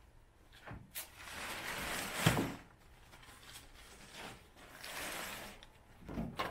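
Tent canvas being handled and tucked in, rustling in stretches, with a sharp click about a second in and a louder knock a little after two seconds.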